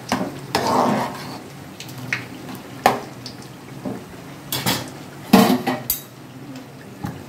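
Metal ladle knocking and scraping against a steel kadai while stirring a pot of boiling pea sundal: a series of irregular clinks and knocks, the loudest about five seconds in.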